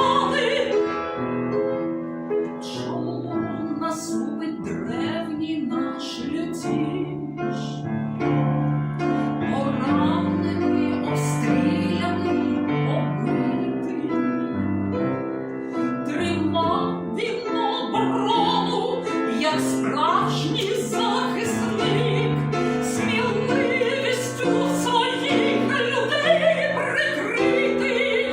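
A trained classical voice singing in operatic style with piano accompaniment: a classical art song or aria with a wide vibrato.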